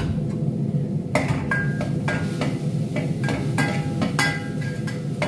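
Metal spoon stirring in a metal cooking pot: from about a second in, a string of short ringing clinks, roughly two a second, as it knocks against the pot, over a steady low hum.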